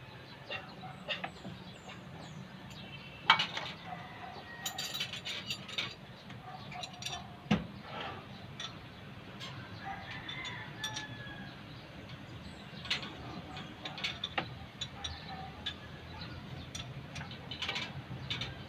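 Scattered metal clinks, taps and knocks of hand tools and engine parts being handled during an engine overhaul, with two louder knocks about 3 and 7.5 seconds in. Faint bird calls sound now and then behind them.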